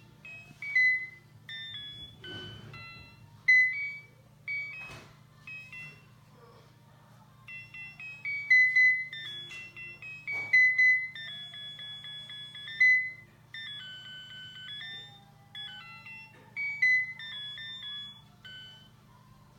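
Musical Christmas angel decoration playing a tinny electronic beeping melody that hiccups: the tune stutters, stops and restarts at irregular moments. A few sharp knocks sound among the notes.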